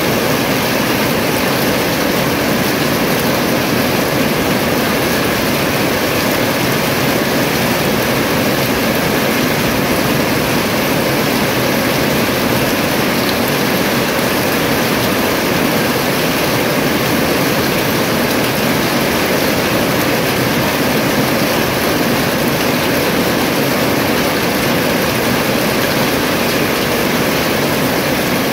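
Steady rain falling, with water streaming and dripping off the edge of a roof eave. The sound is an even, unbroken rush with no separate events.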